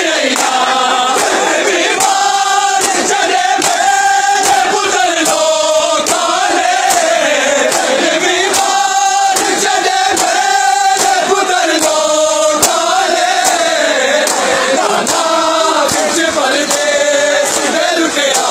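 Crowd of men chanting a noha, a mourning lament, in unison with long wavering held notes. Sharp slaps run under it at about two a second, matam: hands beating bare chests in time with the chant.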